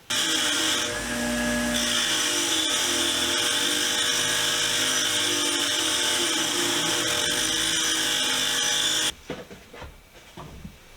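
Powered fine steel wire wheel scrubbing rust off a wrench: a steady motor whine with a high hissing scrub, cutting off abruptly about nine seconds in.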